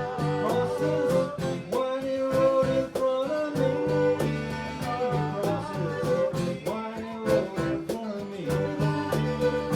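A live country band playing a song with guitars, fiddle, bass and percussion, over a steady beat.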